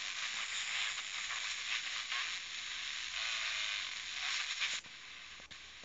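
FM radio static from a Sony Ericsson phone's FM radio tuned to a frequency with no station: a loud, even hiss that drops abruptly to a softer hiss just before the end, with a few faint ticks.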